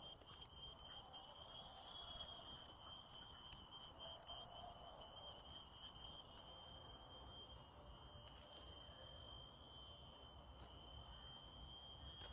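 Steady high-pitched insect chorus, several unbroken trilling tones at once, with the faint scraping of a Morakniv Bushcraft Black knife shaving curls off a wooden stick.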